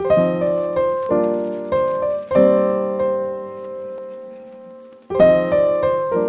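Background piano music: chords struck about every half second, then one chord left to ring and fade for nearly three seconds before the playing picks up again.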